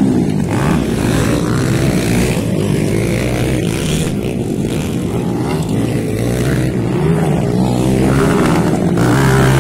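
Small four-stroke, two-valve underbone motorcycle engines racing, revving up and down as the riders take the dirt jumps. The engine pitch rises and falls and climbs again near the end.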